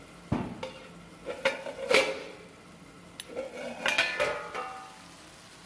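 Metal spoon knocking and scraping against a kadhai as cooked sabzi is stirred, several separate clinks with a short metallic ring.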